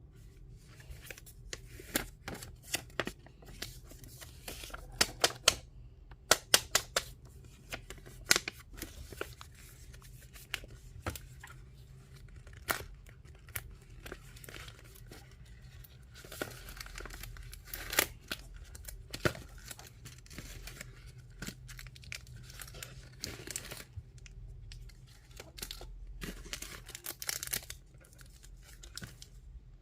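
Packaging being torn open and crinkled by hand: irregular sharp crackles and rustling, loudest in a cluster of snaps around five to seven seconds in.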